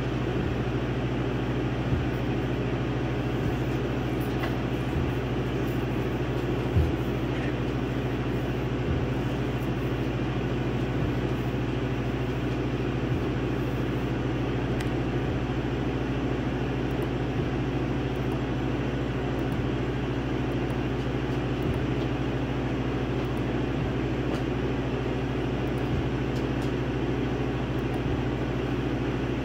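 Laser engraver running as it engraves wood: a steady machine hum from its fans and motors, with faint knocks now and then and one louder knock about seven seconds in.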